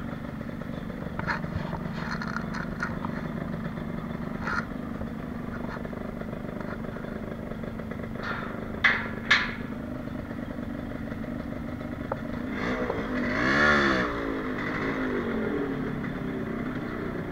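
Yamaha RXZ's two-stroke single-cylinder engine running steadily at low revs. A few short sharp clicks and knocks come in the first half. About three-quarters of the way through there is one throttle blip, its pitch rising and then falling.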